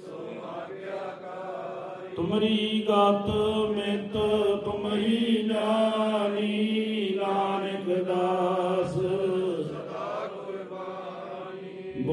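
Sikh devotional chanting: voices drawing out long, held notes over a steady drone, swelling louder about two seconds in.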